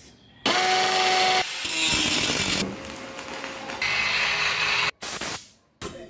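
A run of power-tool sounds cut one after another: a loud motor whine with a steady tone for about a second, then several shorter stretches of motor noise, each changing abruptly to the next, with a brief drop-out near the end.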